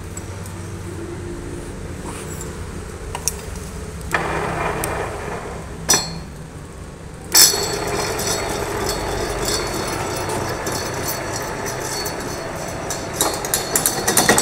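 Metal lathe with a long steel shaft in its four-jaw chuck: a few metal clicks from the chuck key. About seven seconds in, the lathe starts suddenly and runs steadily as the shaft spins. A few metal clinks come near the end.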